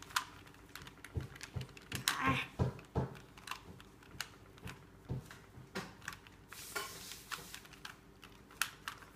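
Rubik's Cube being turned by hand: irregular clicks and rattles of the plastic layers snapping round, a few per second.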